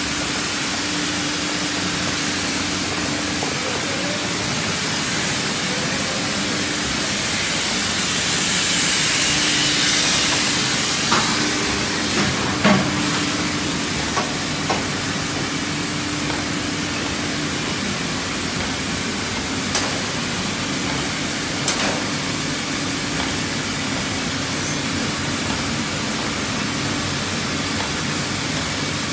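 Fabio Perini tissue converting line running: a steady, noisy machine din with a constant hum underneath. A louder hiss swells and fades about nine seconds in, and sharp clacks stand out a few times between about eleven and twenty-two seconds in.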